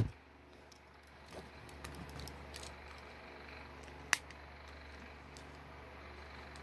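LEGO plastic pieces being handled, with a few faint clicks and then one sharp click about four seconds in, over a low steady hum.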